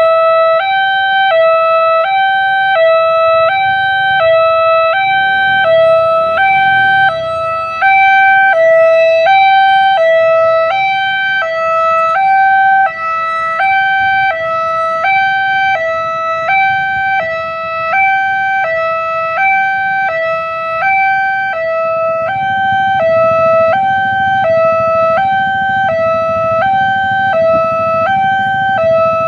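Railway level-crossing warning siren sounding a steady two-tone hi-lo alarm, switching between two pitches about twice a second. A low rumble runs underneath and grows heavier near the end.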